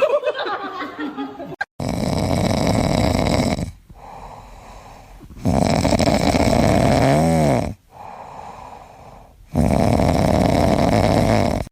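Loud snoring: three long snores about four seconds apart, with quieter breathing between them.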